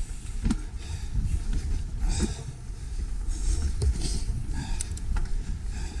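Mountain bike rolling fast down a dirt forest trail: a steady low rumble of wind and tyres on the handlebar camera's microphone, with scattered knocks and rattles from the bike over roots and rocks and brief swishes of passing vegetation.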